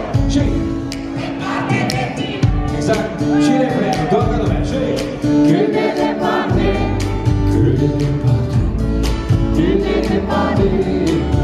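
Amplified live music: a man singing into a microphone over band accompaniment with a steady drum beat. The bass grows heavier about six and a half seconds in.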